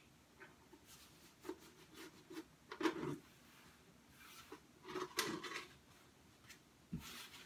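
Hands rubbing and pressing peel-and-stick wallpaper flat, smoothing it down: soft rubbing sounds in a few short bouts, the loudest about three and five seconds in.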